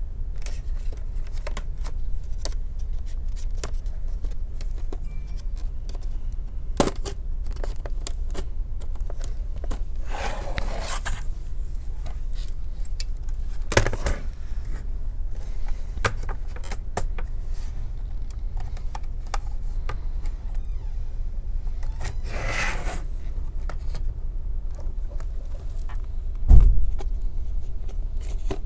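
Small plastic clicks and scrapes as a Dell gaming laptop's keyboard is pried loose from its casing, with two longer scraping passes and one heavy knock near the end, over a steady low hum.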